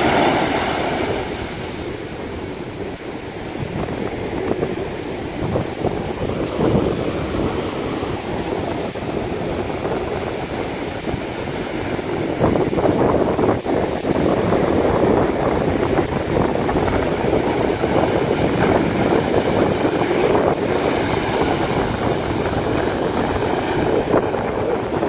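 Sea surf breaking and washing up the beach, a continuous rushing that swells and eases with each wave and grows louder about halfway through.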